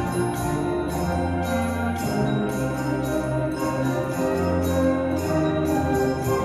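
Junior high school symphonic band, brass and woodwinds, playing held chords over a steady beat of high-pitched percussion.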